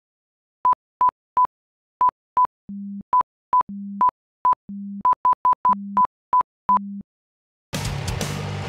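Electronic countdown beeps: a string of short, high, pure beeps in an uneven rhythm, broken by five longer low buzzing tones. About a second before the end they stop and a dense, noisy music track cuts in.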